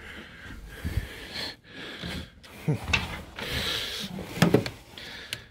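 Wooden shelf unit and the things on it being handled by hand: scattered knocks and rubbing of wood, with papers and cloth rustling.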